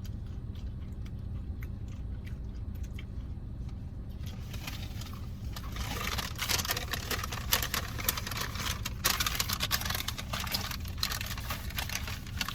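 Crinkling and rustling of fast-food packaging, dense and crackly, starting about four seconds in, over a steady low hum.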